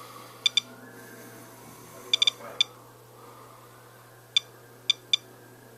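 Geiger counter clicking at random intervals, about nine short, high chirps, some in quick pairs and runs, as it counts radiation from a smoke detector's radioactive source.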